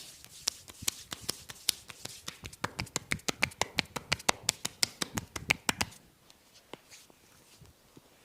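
Massage strokes from the barber's hands: a fast run of sharp slaps and smacks, several a second, that stops about six seconds in, leaving a few faint taps.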